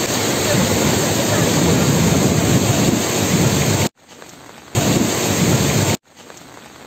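Loud, steady rushing noise of water. It cuts off abruptly about four seconds in, returns briefly, and drops away to a faint hiss near the end.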